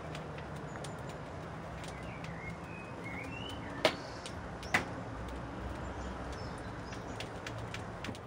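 Knife on a cutting board while cutting pork: scattered small clicks and two sharp knocks about a second apart near the middle. Birds chirp briefly in the background.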